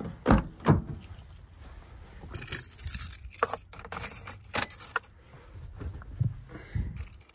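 Two loud clunks as a ute's door is opened, then a bunch of keys jangling and scattered clicks and rustles as the driver gets into the cab and fits the key to the ignition, ready to crank the engine.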